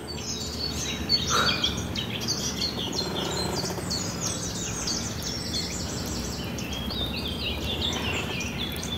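Several small birds singing at once: a continuous run of short high chirps and trills, over a low, even background hum.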